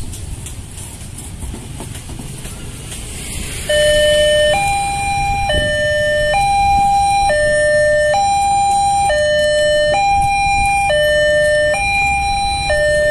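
Railway level-crossing alarm coming on about four seconds in: an electronic two-tone warning alternating between a lower and a higher note, each held just under a second, over street noise of motorbikes. The alarm came on late, with the barrier already lowering.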